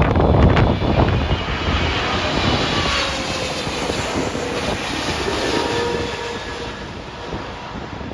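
Jet airliner passing low overhead on final approach to land, loudest at the start and then fading as it moves away, its engine whine sliding slowly down in pitch.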